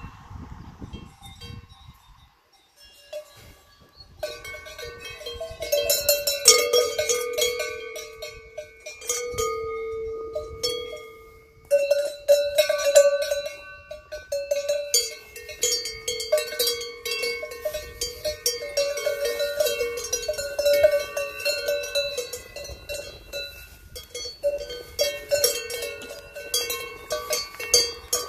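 Cowbells hung from the collars of grazing cows clanking irregularly as the cows move and crop grass. They are faint for the first few seconds, then ring steadily in a dense, uneven jangle of metallic strikes.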